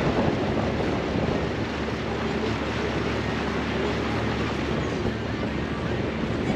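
Steady wind noise on the microphone over the low, even hum of the pontoon boat's motor running.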